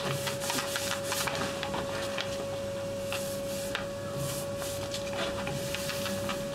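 Small hand paint roller rolling tung oil onto elm boards: a soft, repeated rubbing swish with a few faint clicks, over a steady thin hum.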